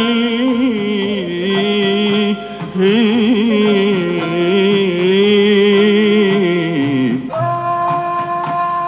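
Arabic religious song (nasheed): a male voice sings long, ornamented notes with heavy vibrato over instrumental accompaniment. The singing stops about seven seconds in, and a steady held instrumental melody carries on.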